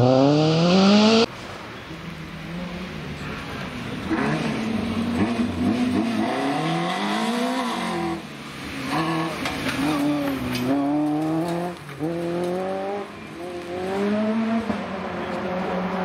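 Citroën C2 rally car's engine revving hard on a gravel stage, its pitch climbing and dropping several times as it shifts through the gears and lifts off, growing louder as it approaches. For about the first second another car's engine is heard climbing in pitch, then it cuts off.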